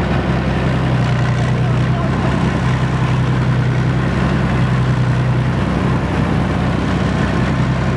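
BVP-01 (Czech-built BMP-1) infantry fighting vehicle's UTD-20 V6 diesel engine running with a steady low drone, heard close up from on top of the hull.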